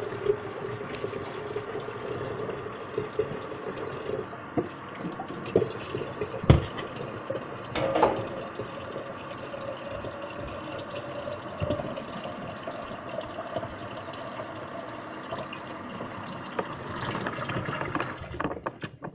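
Water running from a tap into a container, filling it, the pitch of the filling rising as it goes. A couple of sharp knocks break in partway through.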